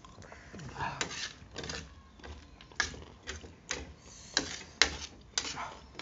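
Close-up eating sounds: about ten sharp, irregular crunches and clicks from chewing crunchy sadheko chau chau and a fork on a plate, the loudest a little before the end.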